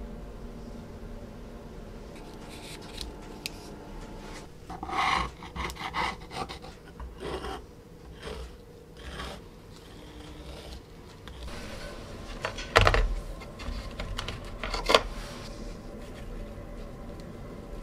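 Steel blade scraping the blackened, electrolysis-treated surface off an iron nail on cardboard, in short irregular strokes. Later come two sharp knocks about two seconds apart.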